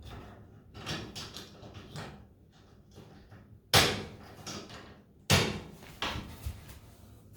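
Handling clicks and rustles of range control-panel parts being put back together, with two sharp, loud knocks about four and five and a half seconds in as parts are set into place.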